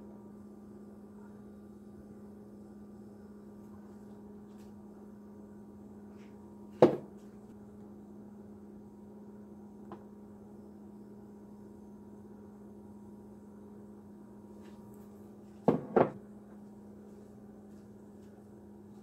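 Steady low electrical hum, with a sharp knock about seven seconds in and two quick knocks close together around sixteen seconds.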